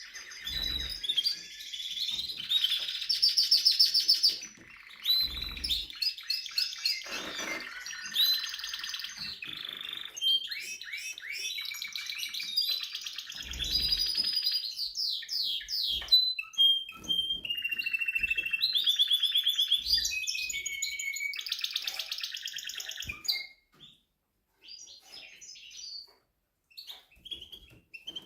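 Timbrado canary singing a long song of rapid trills, repeated notes and pitch glides, which stops a little before the end and gives way to a few short scattered notes. A few low knocks sound under the song.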